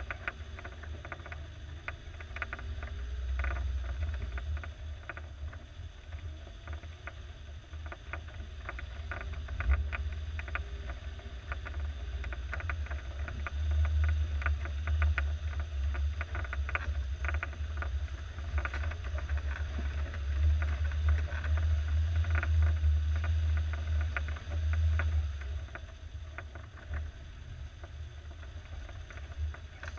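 1987 Suzuki SJ413's 1.3-litre four-cylinder engine pulling the truck slowly along a muddy, rutted trail: a low rumble that grows louder from about halfway. Frequent small clicks and knocks from mud and stones under the tyres run over it.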